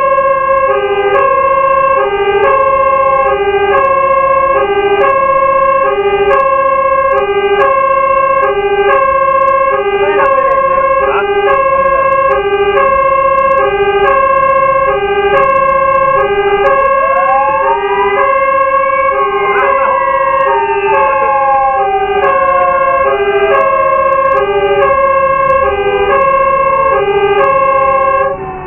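Fire engine's electronic two-tone siren sounding hi-lo, switching between a high and a low tone about every half second. Other sirens wail up and down over it. The two-tone siren cuts off suddenly near the end.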